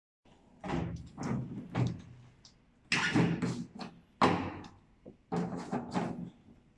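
Hollow plastic bumps, knocks and scrapes as a plastic water tank is set into the base of a portable hand-washing sink. The sounds come in a handful of separate clusters, the loudest about three and four seconds in.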